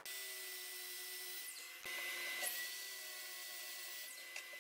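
Miter saw running and cutting through a white oak crib leg, heard faintly as a steady high motor whine over the noise of the spinning blade.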